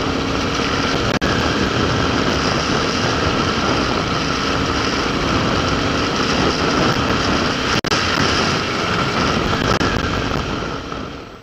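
Dirt bike engine running steadily while riding, heard from a helmet-mounted camera under a dense rushing noise; the sound cuts off suddenly at the end.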